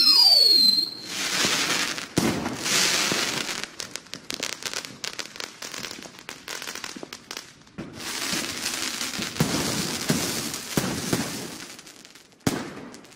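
Fireworks: a whistle sliding down in pitch at the start, then bursts and dense crackling with many sharp pops. A second wave of bursts comes about eight seconds in, and the crackle fades before a last sharp bang near the end.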